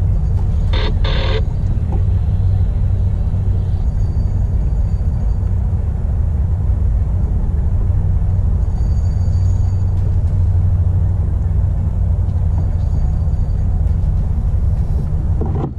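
Steady low rumble of wind buffeting the microphone on a kayak at sea, with a brief rattle about a second in.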